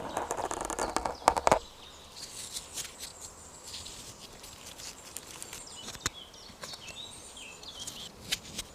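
Close-up crackling rustle with sharp clicks for about a second and a half, then quieter scattered clicks and taps, with short bird chirps in the background near the end.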